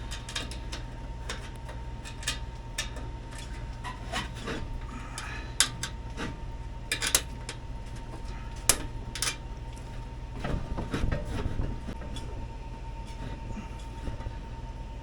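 Scattered clicks and metal knocks from hands and tools working on an air handler's blower assembly, over a steady low hum with a faint thin tone.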